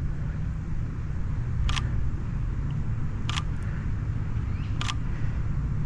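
Camera shutter firing three times, about a second and a half apart, as portrait shots are taken. A steady low rumble runs underneath.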